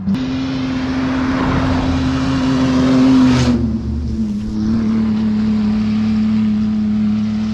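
Off-road race car's engine passing by at speed, growing loudest about three seconds in, then dropping in pitch as it goes past and carrying on as a steadier drone.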